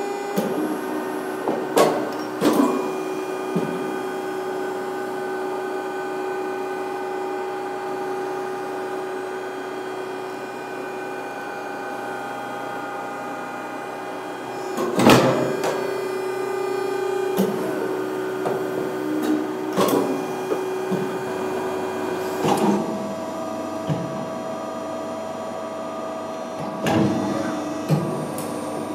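Muratec CNC press brake running: a steady machine hum and whine, broken by several sharp clunks. The pitch of the whine changes about halfway through and again a few seconds before the end.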